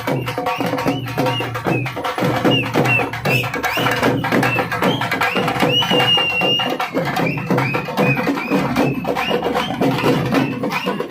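Traditional Tamil procession music for a Kavadi offering: fast, dense drumming with a shrill, high melody line over it that holds one long note about halfway through.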